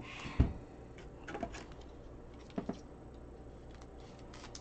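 A trading card and clear plastic sleeve and holder handled by hand: a few soft clicks and rustles of plastic, the sharpest about half a second in.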